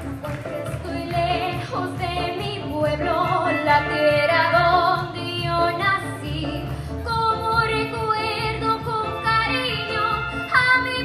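A girl singing through a microphone, with long held notes, over accompanying music with a steady bass beat.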